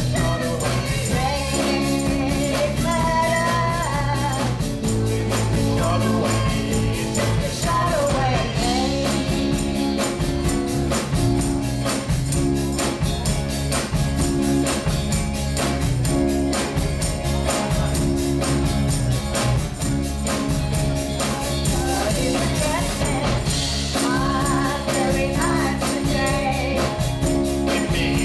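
Live rock and roll band playing: a woman singing lead over electric guitars, bass and drum kit with a steady beat. The vocal drops out about nine seconds in for an instrumental passage and comes back a few seconds before the end.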